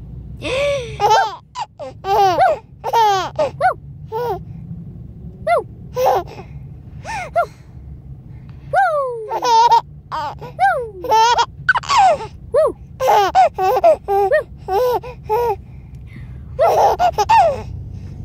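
A five-month-old baby laughing hysterically in repeated high-pitched fits, with gasping breaths in between and a couple of short pauses, over a steady low hum inside the car.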